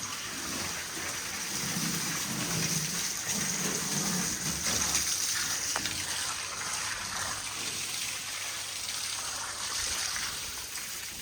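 Water gushing steadily, a continuous hiss with some low rumbling in the first half.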